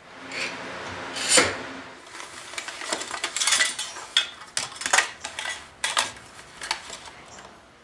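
Hand tools being handled on a workbench: a canvas tool roll unfolded and hand saws and chisels laid out, with cloth rustling and an irregular run of metal clicks and clinks. The loudest is a single sharp clack about a second and a half in.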